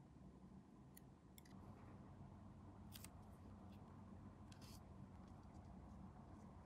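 Near silence: a low steady hum with a few faint clicks and snips from small hand tools working plastic model-kit parts. The clearest click comes about three seconds in, and a short cluster follows about a second and a half later.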